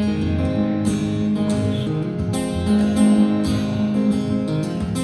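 Acoustic guitar strumming chords in an instrumental passage between sung lines of a song.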